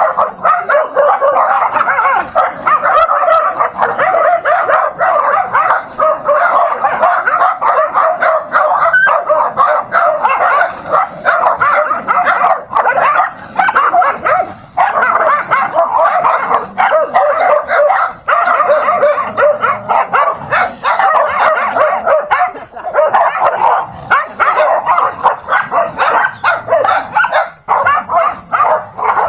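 Several small dogs barking and yipping nonstop in a scuffle, their calls overlapping with hardly a break.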